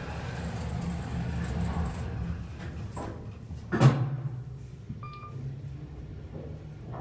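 Elevator doors shutting: the surrounding hum falls away, then a single loud thud a little under four seconds in, with a low ring after it. About a second later comes a short electronic beep.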